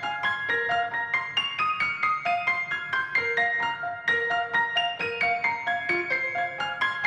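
Background music: a light, quick melody of piano-like struck notes, several a second.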